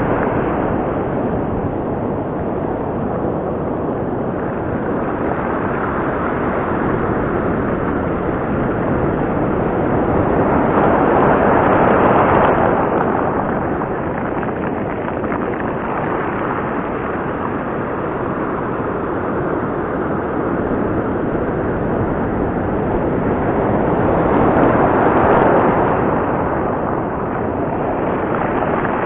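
Sea surf breaking and washing over a rocky shore close by: a steady rushing of water that swells louder twice, about twelve seconds in and again near the end, as bigger waves come in.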